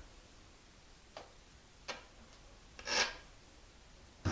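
A couple of faint taps and one short scrape about three seconds in: a trowel spreading thinset mortar on the back of a ceramic tile.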